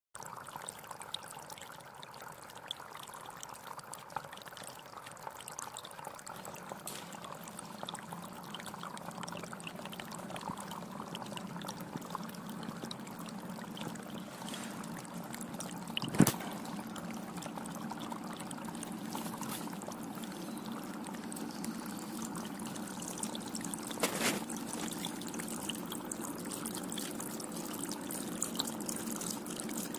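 Water trickling and splashing from the tiers of a terracotta tabletop fountain into pebble-filled basins, a steady soft sound. A sharp click cuts in about halfway, and a fainter one comes later.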